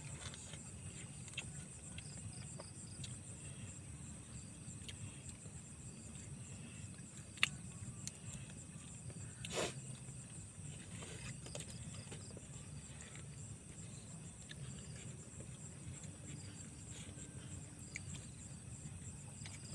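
Hands picking at grilled fish and rice on a banana leaf: scattered small clicks and leaf rustles over a steady low rumble and a steady high hiss, with one sharp click about seven seconds in and a short louder rustle about two seconds later.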